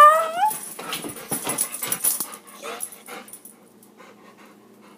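Year-old chocolate Labrador whining in excitement at the word 'walk': a loud, high, wavering whine at the start, a run of short scuffling sounds, then a second brief whine near the three-second mark before it goes quieter.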